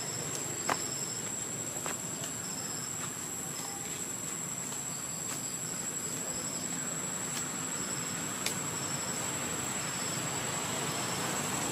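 Steady, high insect drone in the foliage, with short high insect notes repeating about twice a second, over an even hiss. A sharp click comes about a second in and another later on.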